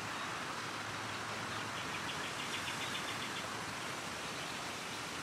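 Outdoor ambience: a steady background hiss, with a rapid series of bird-like chirps, about six a second, lasting a couple of seconds in the middle.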